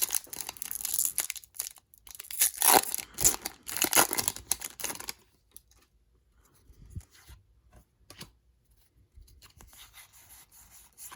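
A Pokémon card booster pack's foil wrapper being torn open and crinkled for about five seconds, then fainter rustling as the cards are handled.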